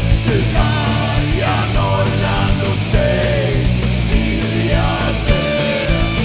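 Heavy, guitar-driven rock music with drums: sustained low notes under regular drum hits, with a melodic line bending in pitch above.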